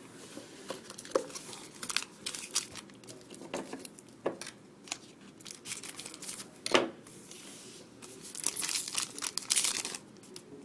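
A hockey card pack's wrapper being torn open and crinkled by hand: irregular crackling with a few sharper snaps, and a denser run of crinkling near the end.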